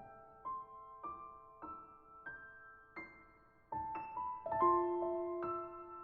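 Background piano music: a slow melody of single notes, each ringing on after it is struck, a new note about every half second, getting louder a little past the middle.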